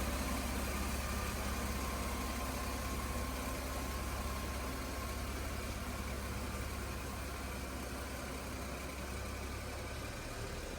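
A steady low mechanical drone, like an engine idling, with a faint steady whine above it; it eases off slightly toward the end.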